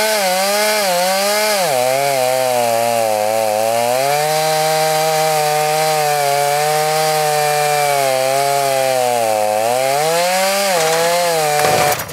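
Two-stroke chainsaw on a chainsaw mill running at full throttle while ripping lengthwise through a log. Its pitch sags a couple of times and recovers as the cut loads it, and the sound cuts off abruptly near the end.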